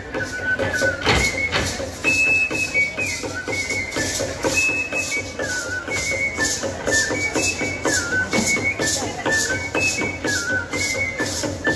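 A high flute plays a stepping folk melody over a quick, steady beat of shaken rattles and drum strokes. This is traditional dance music of the kind played for a danza.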